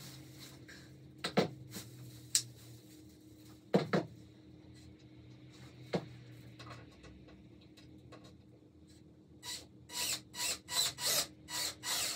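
Wooden shelf parts being handled in assembly: a few sharp knocks of wood in the first half, then a quick run of about seven short rasping, rubbing strokes near the end.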